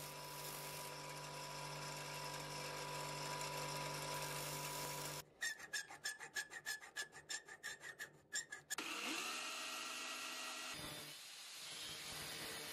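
A bench grinder runs steadily while the edge of a thin steel utility-knife blade is ground on its wheel. About five seconds in, a hand file rasps across metal in quick, even strokes, about four a second, for some three and a half seconds. Then an angle grinder spins up with a rising whine and runs.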